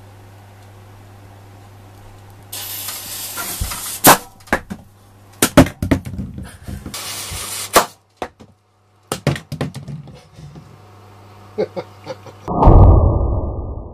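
A firework fuse fizzing, then a sharp bang as the gunpowder charge fires the cardboard-tube cork cannon and launches the papier-mâché head, followed by a series of knocks and clatters. Near the end, a loud, deep, muffled blast.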